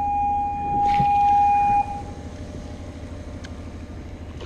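A steady electronic beep, one held tone lasting nearly two seconds that starts and stops abruptly, over the low steady hum of a boat engine running. A brief rattle comes about a second in.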